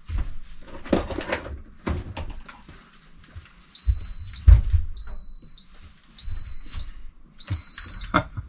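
Electronic beeping from an Instant Pot pressure cooker: a high, short tone that starts about four seconds in and repeats about once every 1.2 seconds. Before and around it come knocks and clatter of things being handled, with one loud thump.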